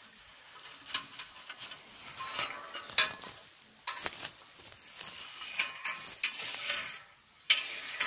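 Close, irregular rustling and crackling of low lingonberry shrubs and dry grass as berries are picked by hand, with sharp snaps among it, the loudest about three seconds in.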